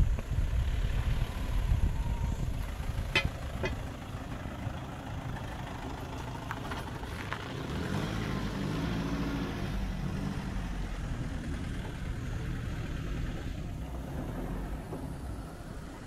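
A motor vehicle's engine running close by, with a low rumble that is loudest in the first few seconds. Two sharp clicks come about three seconds in.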